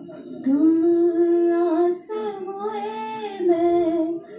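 A woman singing a Hindi geet (a sung poem) in slow phrases of long held notes, heard through a television's speaker.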